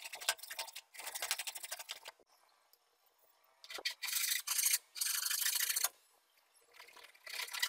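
A metal hand file rasping across a pine block in quick back-and-forth strokes, in about five bursts of a second or so each with short pauses between.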